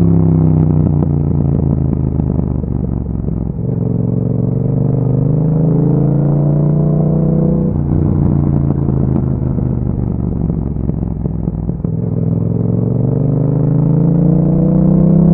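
Yamaha MT-07's parallel-twin engine through an Akrapovic exhaust while riding, the revs falling off, climbing again under throttle, then falling and climbing a second time, with a brief break in the note about halfway.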